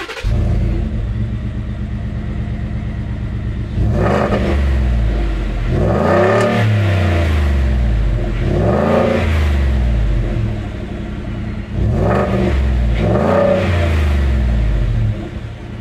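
Ford F-150 V8 exhaust through a MagnaFlow xMOD universal muffler fitted with its muffler module cap. It idles, then is revved about five times, each rev rising and falling in pitch.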